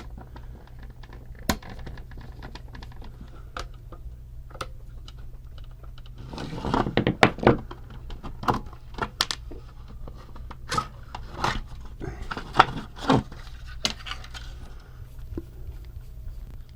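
Small plastic toy gearbox being taken apart by hand: scattered clicks and light clatter of plastic housing and gears. The clicks are busiest about six to eight seconds in and again around eleven to fourteen seconds, over a steady low hum.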